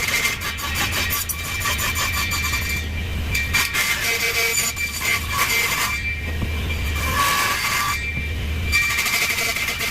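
Table saw running and cutting wood, with a steady high whine over the cutting noise. The cutting noise drops out briefly a few times, leaving only the low motor hum.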